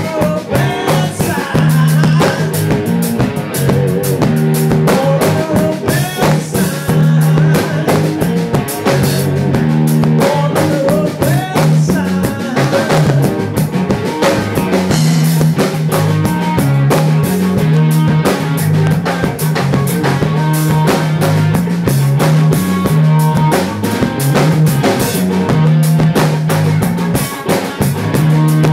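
Live blues band playing instrumentally: electric guitar over a repeating bass guitar riff and a drum kit keeping a steady beat, with no singing.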